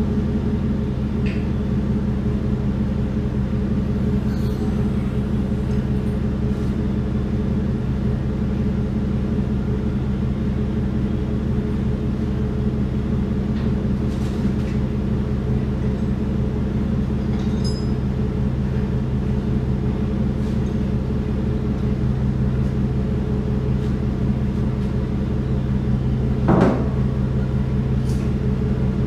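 A steady low mechanical hum at an even level, with a single sharp clank near the end.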